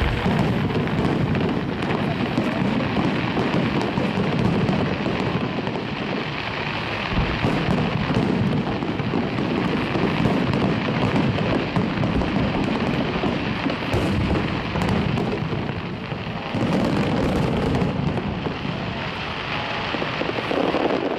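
Fireworks display: aerial shells bursting in a dense, continuous barrage, the booms and crackle running together into one roar. A couple of sharper single bangs stand out along the way.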